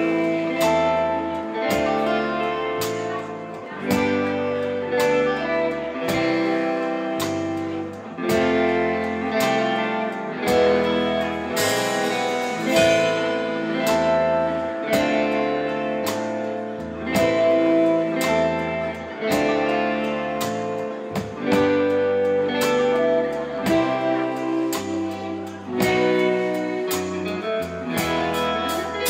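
A live instrumental rautalanka band playing, with an electric lead guitar carrying the melody over a stepping electric bass line and a drum kit keeping a steady beat.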